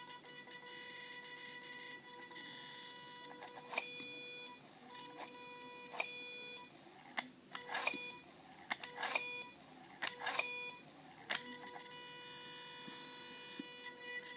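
Alloy Tech fly-by-wire throttle body's motor whining steadily at its 500 Hz pulse-width-modulation drive while it holds the butterfly in position. Through the middle the whine breaks off and returns several times, with sharp clicks and short sweeps, as the butterfly is driven open and closed.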